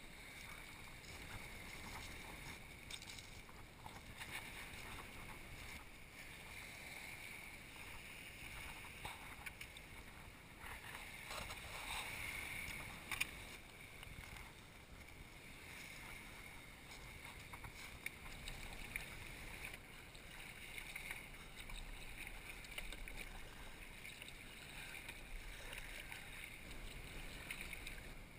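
Faint, steady outdoor ambience of small waves lapping and wind, with a single sharp click about halfway through.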